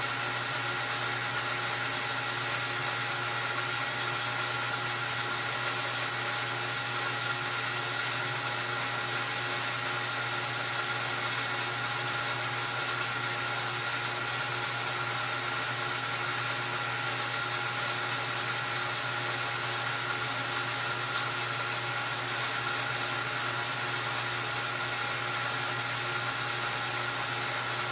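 Metal lathe running steadily while its tool takes a facing cut across a piston: an even mechanical hum with several held whining tones.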